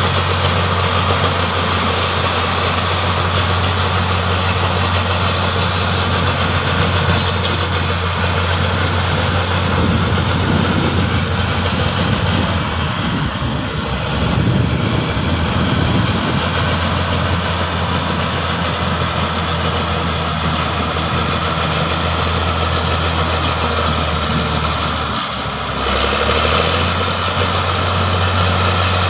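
Crawler bulldozer's diesel engine running steadily with a low drone as the dozer works, pushing earth; the sound dips briefly near the end and then picks up again.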